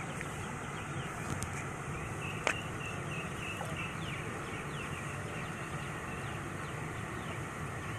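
Steady outdoor background hum with small birds chirping in short, high, repeated notes, and a single sharp click about two and a half seconds in.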